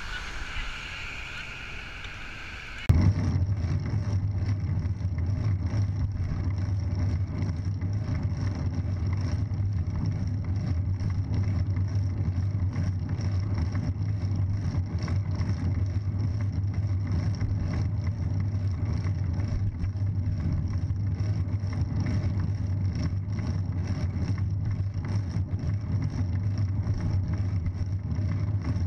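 Steady low rumble of wind and road noise on a bicycle-mounted camera while riding, starting suddenly about three seconds in after a quieter stretch of traffic sound.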